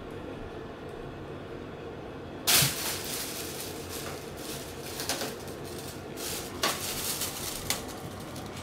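A thin plastic bag crinkling and rustling as a cat paws at it and pushes into it. The crinkling starts suddenly and loudest about two and a half seconds in, then comes in irregular bursts until near the end. Under it runs the steady hum of an air purifier's fan.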